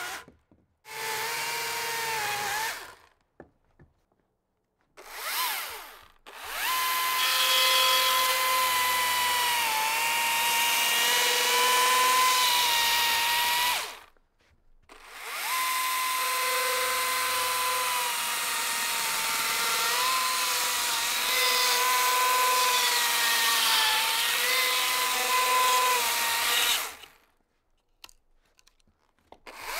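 Chainsaw running at high revs while cutting into a log, in three stretches that stop abruptly. The pitch dips slightly now and then as the chain bites into the wood.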